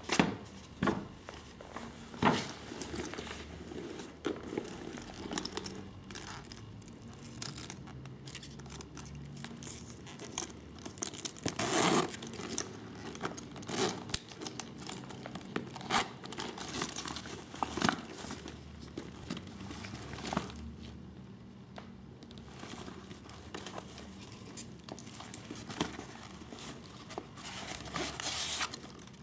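Rustling and crinkling as a Louis Vuitton Monogram coated-canvas handbag is pulled from its fabric dust bag and handled, with irregular small clicks and a louder rustle about twelve seconds in.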